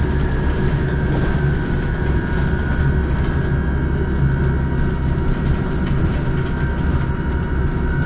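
Cabin sound of a MAN Lion's City Hybrid city bus: a steady low rumble with a thin, slightly wavering high whine over it.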